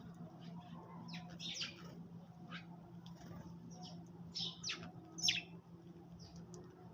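Sparrows chirping: scattered short chirps from several birds, busiest and loudest about four to five seconds in.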